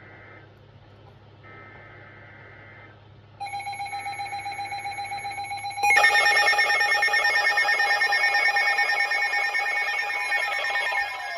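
Emergency Alert System alert audio: two faint buzzy data bursts, then a louder pulsing electronic alarm tone starting about three and a half seconds in. At about six seconds it jumps much louder and fuller, and near the end tones slide down in pitch.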